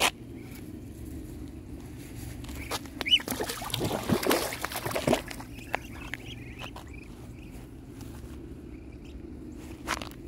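Young Muscovy ducks giving short, soft high peeps, with a louder rustling noise lasting a second or two about four seconds in.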